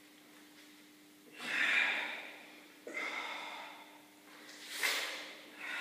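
A man breathing hard, with four heavy exhalations about every one and a half seconds during strenuous push-ups. The first, about a second and a half in, is the loudest, and the last runs on at the end.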